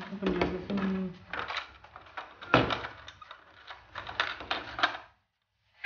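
Plastic toy vending machine being handled: a string of small clicks and knocks as its dispensing tray and parts are worked, with a sharp knock about two and a half seconds in. A short bit of voice comes in the first second.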